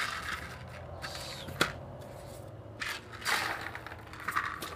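Small handling sounds of BBs being loaded one at a time into an airsoft pistol's magazine: several short scrapes and rustles, with one sharp click about a second and a half in.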